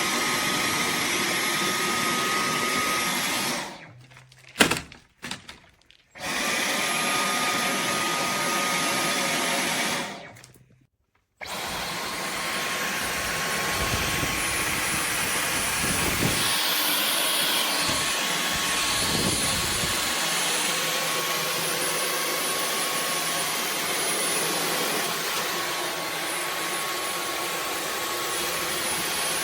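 Dyson V15 Detect cordless stick vacuum running with a steady rushing hiss and a high motor whine. It shuts off and starts again twice, with a sharp click about a second after the first stop. After the second restart the whine runs slightly lower.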